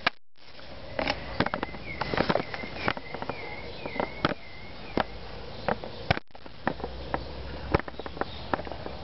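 Handling noise from a handheld camera: irregular clicks and knocks of fingers on the body and microphone, with a string of faint high chirps in the background for a few seconds after the start. The sound cuts out briefly at the start and again about six seconds in.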